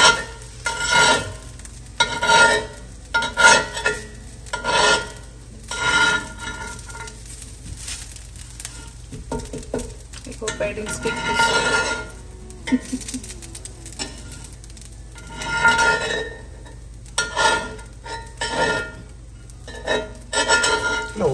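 Dosa cooking on a new cast iron tawa: batter sizzling, with a utensil scraping against the pan in repeated strokes about once a second.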